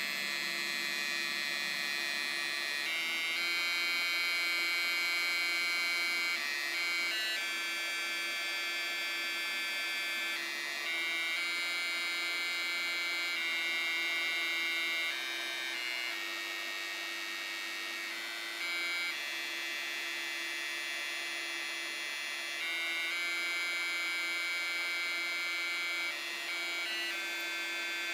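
Homemade Arduino sound card, an NE555 driven through a digital potentiometer, sounding buzzy electronic tones. Each note holds for a few seconds before stepping to a new pitch, making a slow melody.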